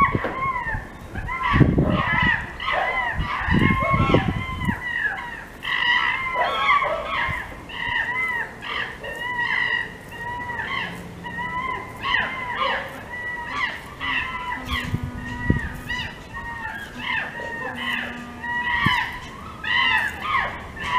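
Birds calling over and over, many short arched calls overlapping one another, with a low rumble during the first few seconds.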